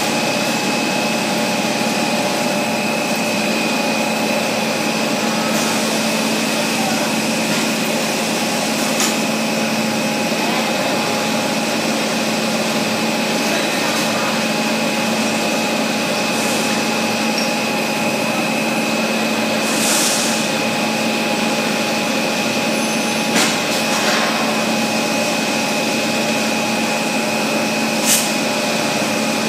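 High-speed stretch film production line running: a steady machine hum with several held tones, and a few brief sharp sounds in the second half.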